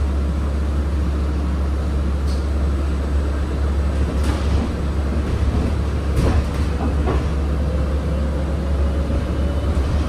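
Interior of a moving city bus: a steady low rumble of the running bus and its tyres on the road. A few sharp rattles and knocks come from the body and fittings, and a faint whine rises slowly over the last few seconds.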